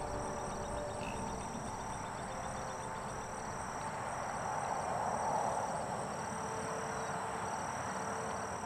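Insects trilling steadily in the grass: a high, continuous buzz with a faint regular pulse over a constant outdoor hiss.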